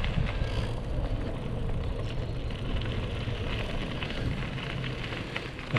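Mountain bike riding along a dirt trail: tyres crunching and crackling over grit and dry leaves, with small rattles from the bike over a steady low rumble.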